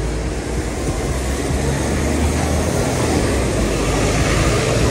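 City street traffic noise with a bus's engine running close by: a steady low rumble that grows slightly louder.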